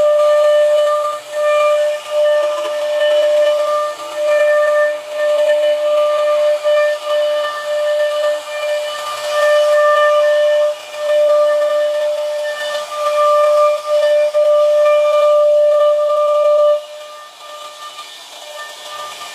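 CNC router spindle whining at a steady high pitch while its bit routes a curved groove into a wooden door panel. The whine drops away about three seconds before the end.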